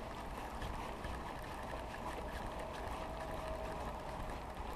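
Steady river-bank ambience: a low wash of moving water and wind on the microphone, with a faint thin hum for about a second and a half in the middle.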